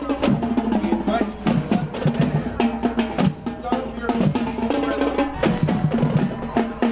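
Marching band drumline playing a drum cadence: snare drums and bass drums beating a fast rhythm, with snare rolls and cymbal crashes.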